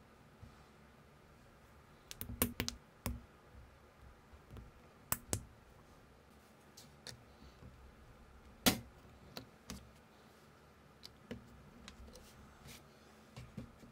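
Small plastic building-brick parts of an unofficial LEGO-compatible minifigure set clicking and snapping together as they are handled and pressed onto a base plate. The clicks are scattered and irregular, a few in quick pairs, the sharpest a little past halfway.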